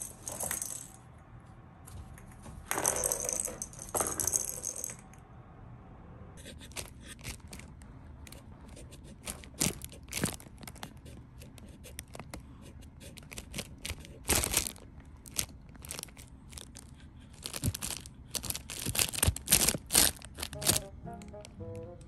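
For the first few seconds, plastic balls rattle in a cardboard scratcher track toy as a cat paws at them. After that, a crinkly cat tunnel gives sharp crackling rustles in irregular bursts as a cat moves against it.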